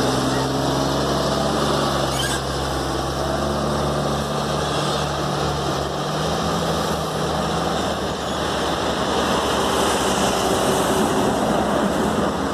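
Mercedes-Benz L-1620 truck's six-cylinder diesel engine pulling away under a heavy load and driving off. The engine runs steadily throughout.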